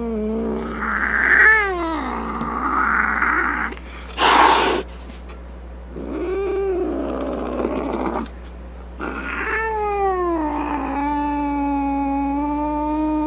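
Domestic cat yowling and growling in long, wavering, drawn-out calls, with a short sharp hiss about four seconds in.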